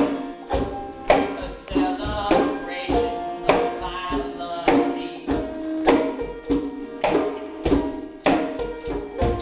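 A live acoustic folk band playing an instrumental passage: strummed acoustic guitar and banjo chords over a djembe-style hand drum, with a deep drum beat about every second.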